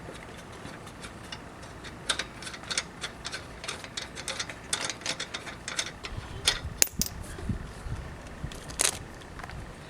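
Hand ratchet with a 19 mm socket clicking rapidly as a shock-absorber mounting nut is run off. There are a couple of sharper metal clinks near the end.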